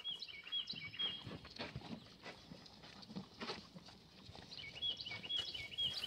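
Calves shifting and stepping about on wet hay and mud, giving scattered soft knocks and shuffles. A songbird sings a quick, repeated chirping phrase near the start and again near the end.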